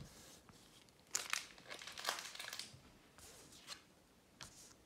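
Magic: The Gathering booster pack's foil wrapper crinkling in the hands and being torn open, in several faint, scattered rustles.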